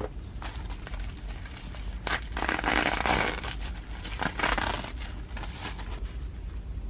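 Rustling and scraping as menstrual pads and their packaging are handled, louder for a second or so about two seconds in and again briefly near the middle.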